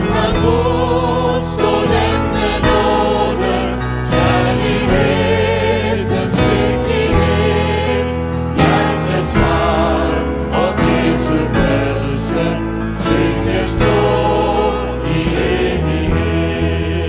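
Many voices singing a Norwegian Christian song together with vibrato, backed by grand piano, bass, synth and drums, with regular drum strikes.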